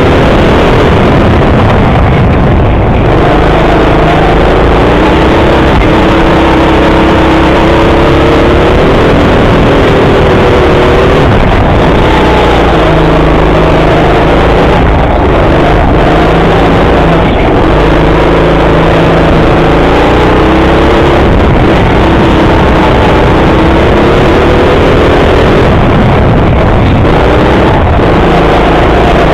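Go-kart motor running flat out, heard loud on the kart's onboard camera, its pitch repeatedly rising and falling as the throttle is lifted and reapplied through the corners.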